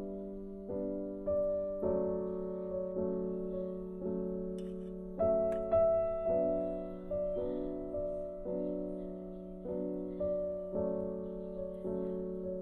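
Background piano music: gentle struck notes, roughly two a second, each dying away over a held low note.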